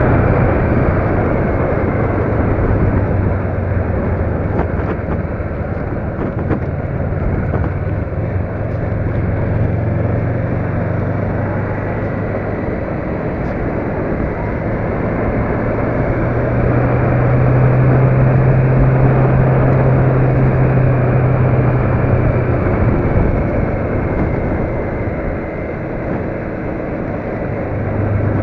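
A road vehicle's engine running steadily under a constant wash of road noise while driving. Its low hum drops in pitch about twelve seconds in, rises again a few seconds later, falls near the last quarter, and rises once more at the end.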